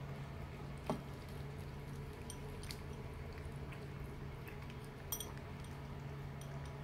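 Cats eating wet food from bowls: soft, wet chewing and licking with small scattered clicks. Two sharper knocks against the bowl come about a second in and about five seconds in. A faint steady low hum sits underneath.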